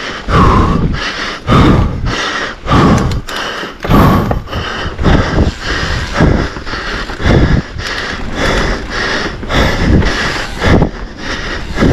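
A racing mountain biker's heavy panting, one hard gasping breath about every second and a bit, in a steady rhythm.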